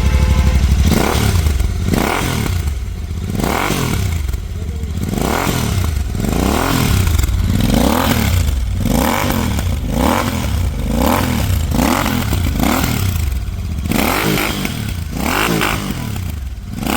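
Royal Enfield Interceptor 650's parallel-twin engine through AEW 103 stainless-steel aftermarket exhausts with the baffles fitted. It idles steadily, then from about a second in is revved in repeated quick throttle blips, roughly one a second, each rising and falling back.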